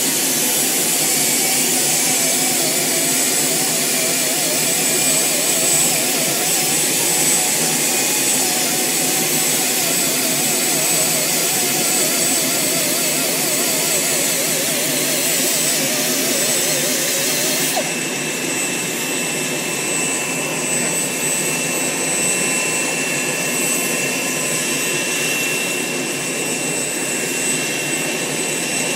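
Bell 206 JetRanger helicopter's Allison 250 turboshaft engine running on the ground with a steady high whine. About eighteen seconds in, the sound turns duller and slightly quieter, then holds steady.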